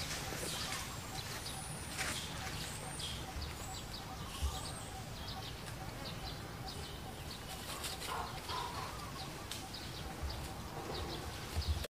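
Scattered short, high-pitched animal chirps and squeaks, some sliding in pitch, over a steady low background rumble, with a couple of lower calls about two-thirds of the way through.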